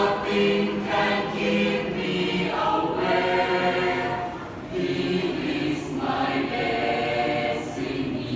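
A choir singing in harmony, several voices holding long notes together in phrases with short breaks between them.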